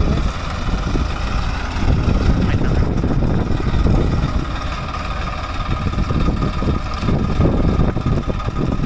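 Swaraj tractor's diesel engine running hard, steady and loud, as the tractor works in deep mud where it is stuck.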